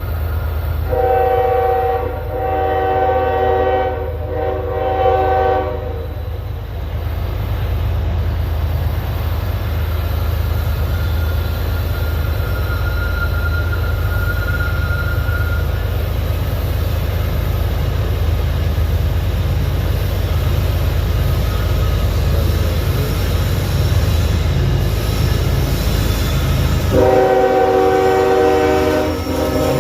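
CSX freight locomotive hauling a coal train, sounding its multi-tone horn in a few blasts over the first several seconds, with the diesel engine running steadily underneath. The horn sounds again for a few seconds near the end.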